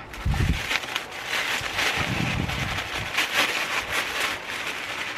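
Tissue paper rustling and crinkling as a wrapped gift is pulled open by hand, with a low handling bump near the start and another around two seconds in.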